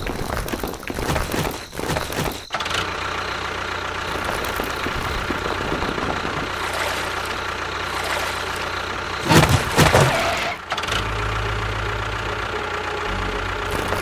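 Engine-like running sound of a miniature construction vehicle: irregular rumbling at first, then a steady hum. There is a brief louder burst about nine and a half seconds in, and a deeper steady drone from about eleven seconds.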